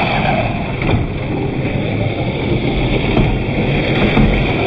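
Electric RC scale crawler's 540 45T brushed motor and gear drivetrain running steadily under load as the truck crawls over loose dirt and rocks, with its tyres crunching on the soil. The sound is slowed to half speed.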